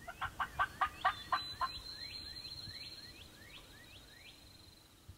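A wild turkey gobbler gobbles once at the start, a rapid rattling burst of about ten notes lasting under two seconds. After it comes a string of fainter, falling whistled notes.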